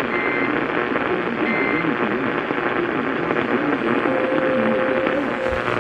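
Several radios playing severe thunderstorm warning broadcasts at once: overlapping announcer and synthesized alert voices through small speakers over hiss, too jumbled to make out. Two short high beeps sound in the first two seconds.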